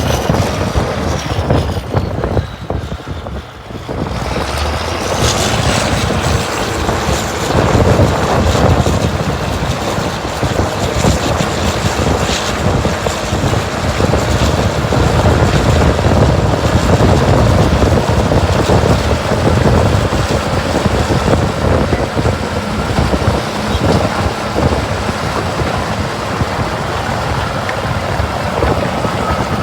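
Large engine of heavy machinery running steadily, with wind noise.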